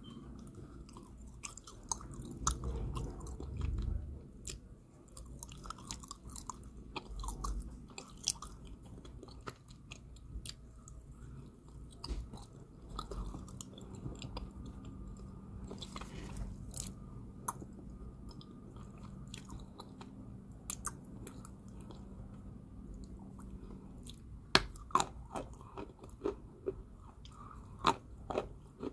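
Close-up chewing of a baked clay ball (edible clay, bolas de barro), with many sharp crunchy clicks over low, wet chewing. A cluster of louder crunches comes near the end.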